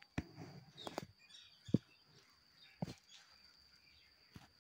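Faint clicks and soft rustling of a knitting needle and fuzzy yarn being handled while a knitted sock heel is seamed by hand.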